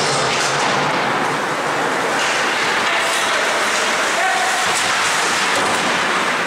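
Steady din of an ice hockey game in a rink: skates scraping the ice, with faint voices in the background.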